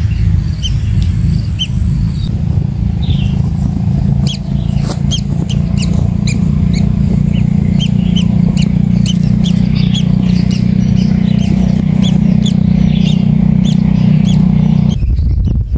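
Short, high bird chirps repeating two or three times a second over a loud, steady low rumble. The rumble cuts off suddenly near the end.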